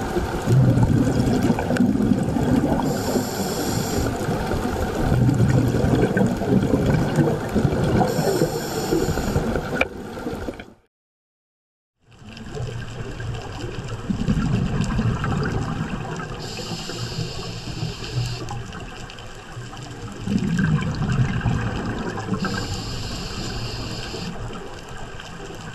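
Scuba diver breathing through a regulator underwater, heard through the camera housing: each breath has a hiss of inhaled air and a rush of exhaled bubbles, repeating about every five to six seconds. The sound cuts out for about a second near the middle.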